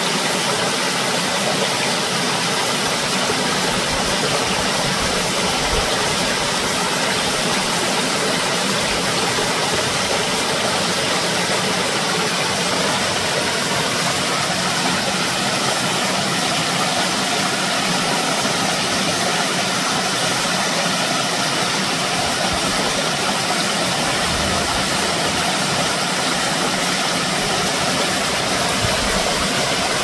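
Steady, unbroken rushing noise with no rhythm or pitch, spread evenly from low to high.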